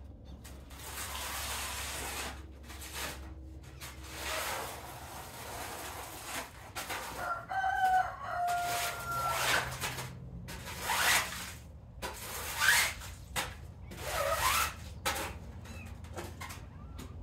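A rooster crowing once near the middle, one long call of about two seconds that dips slightly at the end, among repeated short bursts of rushing noise.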